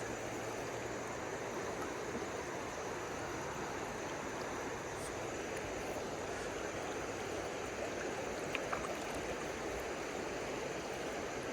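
Steady rush of flowing river water, with a few faint ticks about eight seconds in.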